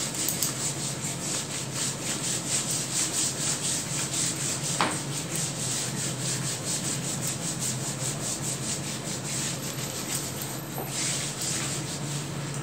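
Duster wiping a whiteboard clean in quick back-and-forth scrubbing strokes, about three or four a second, with a light knock about five seconds in.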